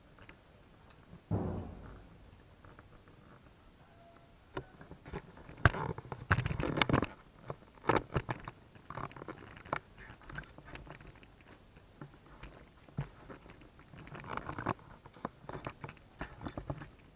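Scattered knocks, clicks and thumps at irregular intervals, loudest in a cluster about six to seven seconds in.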